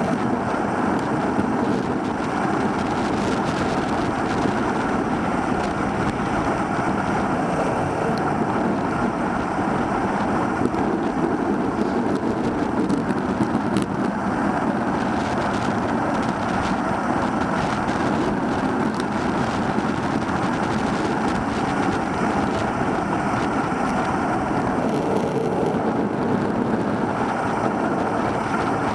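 Steady rushing wind and tyre noise on a bicycle-mounted camera's microphone while riding along a road.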